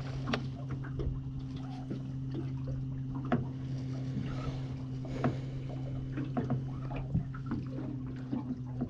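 Baitcasting reel being wound in, with small clicks and handling noise, over water lapping at the boat's hull. A steady low hum runs underneath.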